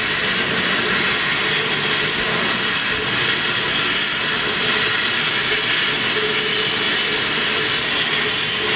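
Laser cutting machine at work on 3 mm sponge sheet: a steady, loud hiss of air from the air-assist jet at the cutting head, with no pauses.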